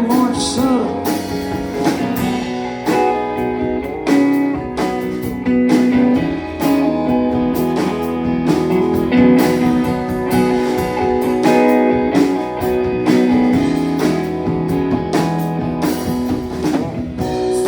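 Band music with no singing: guitar playing over a steady drum beat in an instrumental break.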